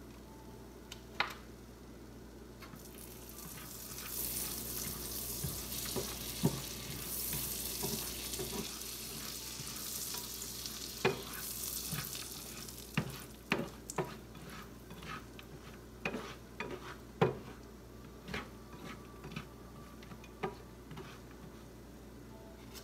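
Cheerios frying in a pan, a high sizzle that starts about three seconds in and dies down around twelve seconds, while a spatula stirs them. In the second half the spatula scrapes and knocks against the pan in sharp taps, the loudest knock a few seconds before the end.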